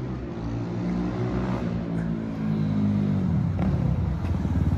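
Kayo K6 250 dirt bike's single-cylinder four-stroke engine running as the bike rides closer, growing louder. About three seconds in, the engine note falls to a low, even pulsing as the throttle closes.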